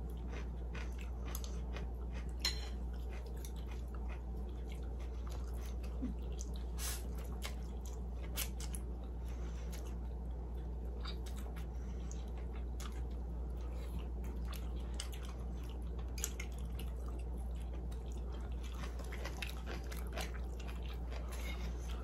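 People eating instant noodles close to the microphone: chewing and slurping, with scattered short clicks of chopsticks and a spoon against bowls, over a steady low hum.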